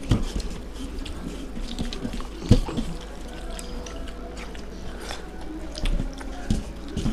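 Wet, sticky squelching of fingers mixing and scooping soupy rice mash on steel plates, mixed with chewing and lip smacks. A single sharp knock stands out about two and a half seconds in.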